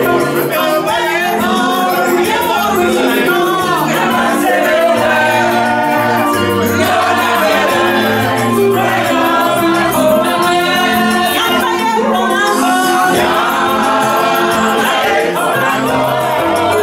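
Live gospel choir singing with electronic keyboard accompaniment, a lead voice and group voices over a steady bass line.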